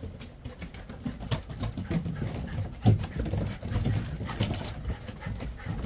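Golden retriever puppies' paws padding and clicking on wooden deck boards, a scatter of irregular light knocks with one louder thump about three seconds in.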